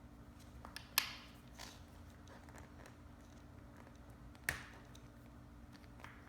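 Small parts and tools being handled on a workbench: faint scattered ticks, with two sharp clicks about a second in and about four and a half seconds in.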